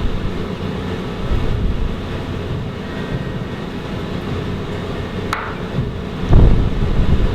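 Steady low mechanical rumble, with a sharp click about five seconds in and a heavy low thump near the end.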